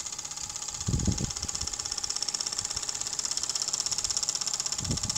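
Mamod live-steam model engine running, its exhaust giving a fast, even beat with a steady hiss. A brief low rumble comes about a second in and again near the end.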